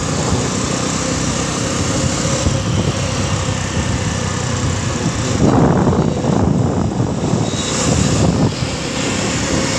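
Small motorcycle engine running while riding at road speed, with wind buffeting the microphone in gusts, strongest about halfway through and again near the end.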